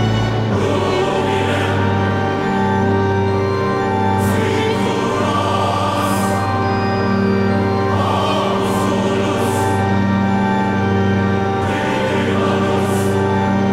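Background music: slow, sustained choral voices over a steady low bass note, swelling every couple of seconds.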